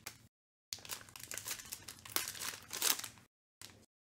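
Foil wrapper of a Panini Playbook football card pack being crinkled and torn open by hand: a dense run of sharp crackles, loudest near the end. The sound cuts out completely twice, briefly.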